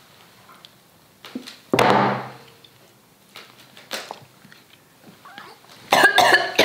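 People gasping and groaning after gulping down a very spicy, garlicky smoothie: a loud, rough outburst about two seconds in and a drawn-out, wavering groan near the end. In between, a few light knocks of glasses set down on a table.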